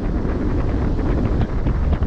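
Wind buffeting the microphone in a steady low rumble, over the rush of sea water at a moving ship's bow, with a few faint crackles.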